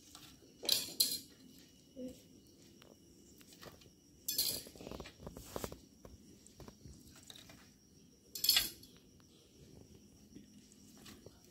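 Pieces of grilled paneer and capsicum tikka tipped onto a metal plate, clattering against it in three short bursts: near the start, about four seconds in and past eight seconds, with small clicks between.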